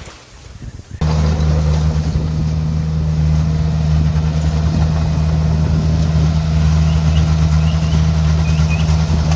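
Bulldozer's diesel engine running steadily, cutting in abruptly about a second in. A few faint high chirps are heard near the end.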